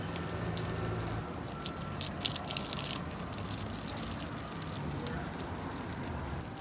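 Water pouring from a glass jug onto potted plants, splashing steadily on leaves and soil.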